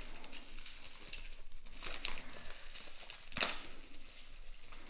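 Plastic bubble-wrap pouch crinkling and crackling as it is handled and pulled at to get it open, with a sharper crackle about three and a half seconds in.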